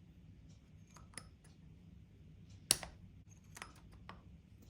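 Scattered light clicks of a hex driver and small metal parts being handled while an RC car hub's grub screws are loosened, with one sharper click about two and a half seconds in.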